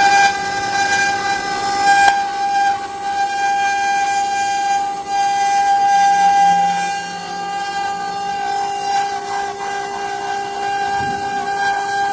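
CNC wood-carving router running, its spindle giving a steady high whine that holds one pitch, over a noisy haze of cutting.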